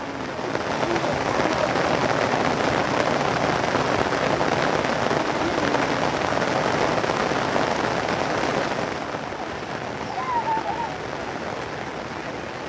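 Heavy rain falling steadily, growing louder about half a second in and easing off around nine seconds.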